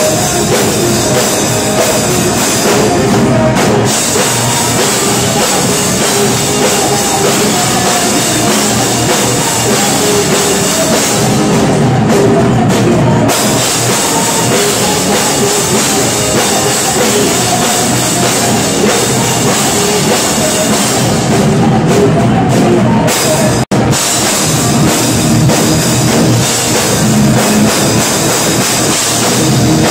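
Live rock band playing loud: electric guitars, bass guitar and a drum kit with cymbals. The sound cuts out for an instant about three-quarters of the way through.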